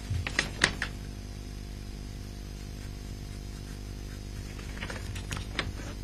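Steady low electrical hum, with a few faint light clicks in the first second and again about five seconds in.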